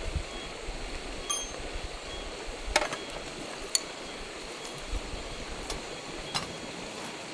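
Ferro rod scraped with a knife over cotton tinder in a metal folding wood stove: a few short, sharp scrapes, the loudest about three seconds in, as sparks light the tinder. Near the end, dry split twigs click against the stove as they are laid on the flame.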